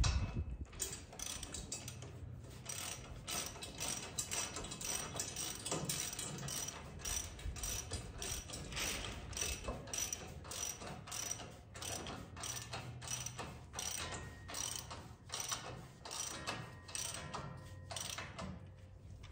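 Hand ratchet wrench clicking, stroke after stroke, as mounting bolts are tightened; the clicking stops shortly before the end.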